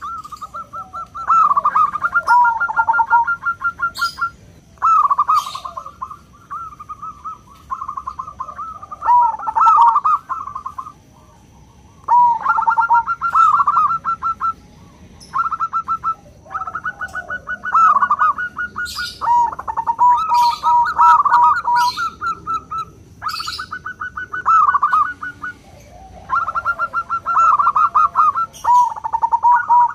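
Zebra dove (perkutut) cooing: phrases of fast, trilling staccato coos repeated with short pauses between them, with thin high chirps now and then.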